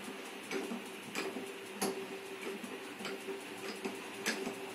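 Hand-cranked honey extractor spinning comb frames: the crank and gear mechanism ticks regularly, a little under twice a second, over a steady whir as the drum turns and flings honey out of the comb cells.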